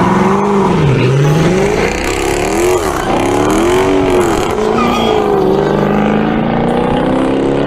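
Dodge Charger's engine revving hard during a burnout, the pitch swinging up and down several times, then climbing steadily as the car pulls away.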